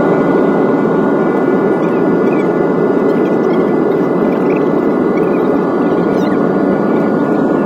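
Jet airliner cabin noise heard over the wing during the ground roll on the runway: the turbofan engines and rushing air make a steady loud noise, with a few high, steady whining tones running through it.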